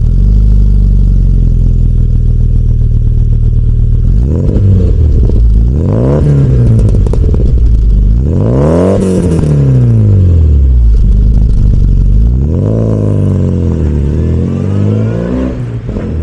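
1997 Rover Mini's 1.3-litre MPI four-cylinder engine idling through a sports exhaust, blipped twice about 4 and 6 seconds in, then revved higher about 9 seconds in. Near the end comes a longer rev, held and let fall slowly back to idle.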